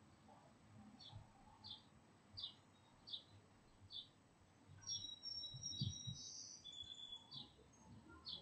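Faint bird chirping outdoors: one short high chirp repeated about every 0.7 seconds, with a few longer, clear whistled notes about halfway through.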